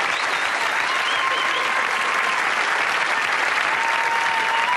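Audience applauding steadily at the end of a stand-up comedy set.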